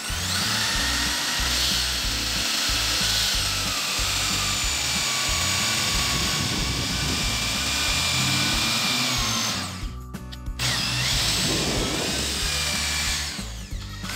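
Handheld electric drill spinning a wooden stick through a razor-blade dowel maker, the blade shaving it down into a 12 mm round dowel: a steady motor whine over a dense shaving noise. The drill cuts out briefly about ten seconds in, then starts up again.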